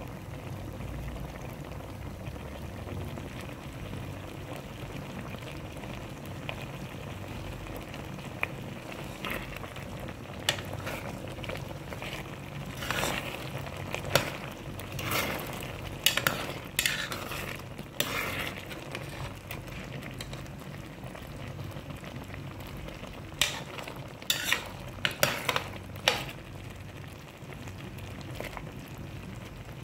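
A thick creamy stew bubbling in a pot with a steady low simmering noise. Through the middle, and again for a few seconds near the end, a metal spoon stirs it, scraping and clinking against the pot.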